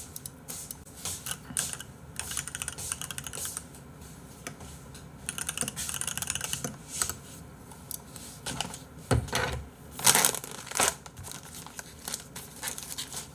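Computer keyboard typing in quick runs of key clicks, with a few louder knocks about nine to ten seconds in.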